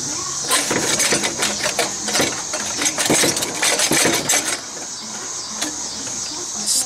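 Hand tools clicking and clanking against the metal of a 6.0L Powerstroke's exhaust pipes as the up-pipe is worked loose. A dense, irregular run of metallic clicks lasts about four seconds, then a few single knocks follow over a steady hiss.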